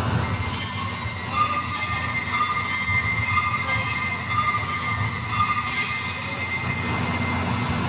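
Altar bells rung continuously over loudspeakers at the elevation of the host, a steady high ringing of several clashing tones that dies away near the end.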